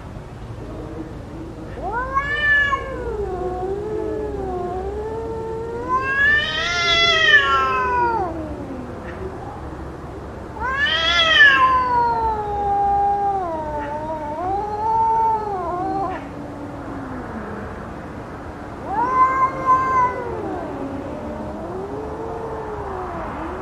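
Cats yowling in a fight, long wavering howls that rise and fall in pitch, one after another. These are the loud threat calls of a cat standoff.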